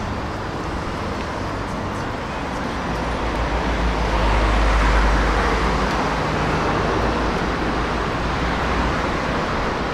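City street traffic noise: a steady roar of road vehicles with a deep rumble that swells about four to six seconds in as a vehicle passes close, then eases.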